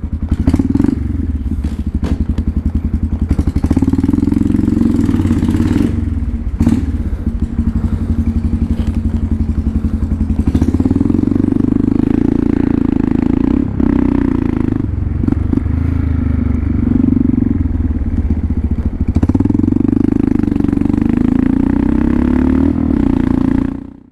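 Motorcycle engine running as the bike rides off, its note swelling and easing in turns as the rider accelerates and lets off.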